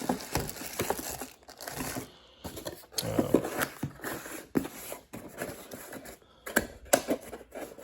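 Handling noise from tools and their packaging: rustling and crinkling with irregular sharp clicks and knocks.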